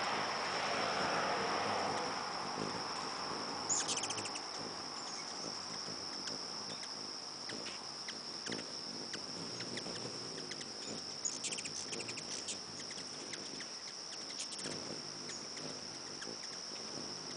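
A steady, high-pitched insect drone runs throughout. Over it come a few short bursts of rapid, dry chittering from the hummingbirds squabbling at the feeder: about four seconds in, and again twice later.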